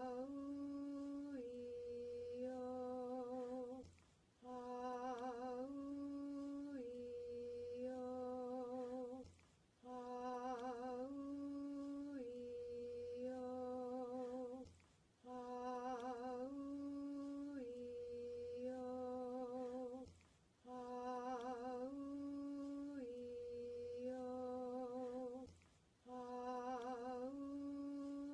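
A single voice chanting the vowel sequence "ah-oo-ee-oh" as a slow healing chant, each vowel held for about a second on near-level notes, the second a little higher. The sequence repeats about every five seconds with a short breath pause between repetitions.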